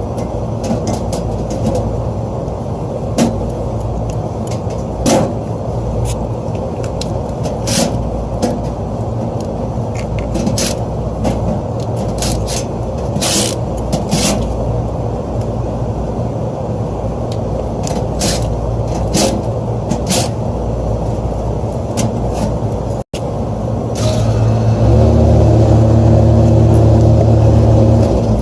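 Rooftop HVAC repair work: a steady low machinery rumble with scattered short clicks and knocks of tools and parts being handled. About three seconds before the end, a much louder steady low hum starts up and holds.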